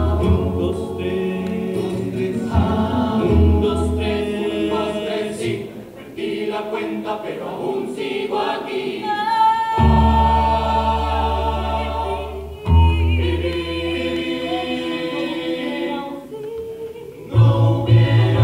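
A rondalla singing in chorus, mixed voices in harmony over guitar accompaniment, in long phrases with brief breaks between them.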